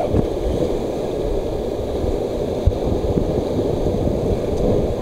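Whitewater rapids rushing and splashing against an inflatable raft's bow, close to the microphone, with wind buffeting it and an occasional low thump about halfway through.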